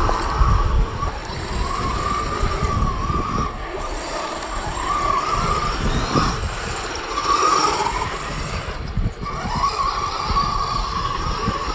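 Electric radio-controlled off-road cars racing on a dirt track, their motors whining in repeated surges that rise and fall in pitch as they accelerate and pass.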